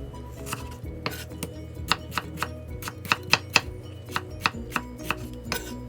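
Knife chopping tomatoes into small cubes: a run of uneven, sharp knocks, about two or three a second.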